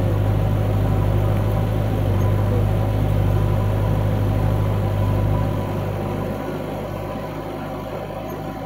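Diesel engines of a backhoe loader and a tractor running steadily with a low hum. The hum drops noticeably about five and a half seconds in.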